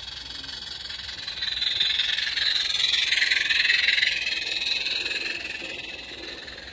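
16mm-scale live-steam garden locomotive and its coaches passing close by on the track: rapid steam chuffing and running noise that swell to a peak about three seconds in, then fade away as the train goes past.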